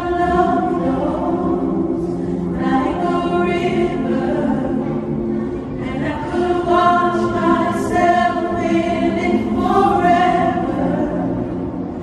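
Background music: a choir singing slow phrases with long held notes.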